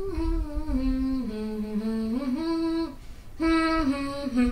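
A woman humming a slow, wordless melody, moving in steps between long held notes, with a short break for breath about three seconds in.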